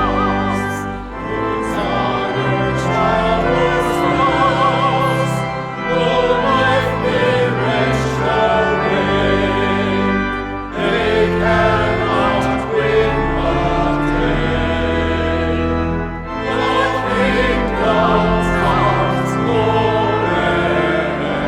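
Sung church music: voices singing with vibrato over sustained organ chords, pausing briefly between phrases.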